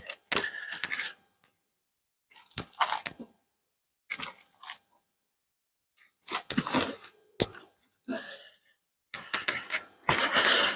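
Handling noise from harvested potatoes and soil: several short bursts of rustling and crunching with pauses between them, and a sharp knock about seven and a half seconds in.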